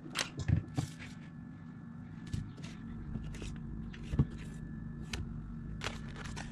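Plastic food tubs and packets being picked up and set down on a kitchen counter: scattered light knocks and clicks, the sharpest knock about four seconds in, over a steady low hum.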